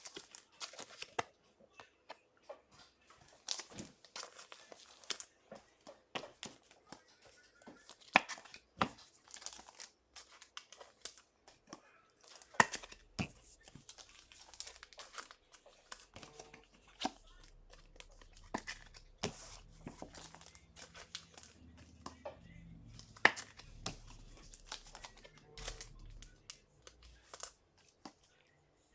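Trading cards and plastic packaging being handled close up: a run of rustling and crinkling broken by many small sharp clicks and snaps.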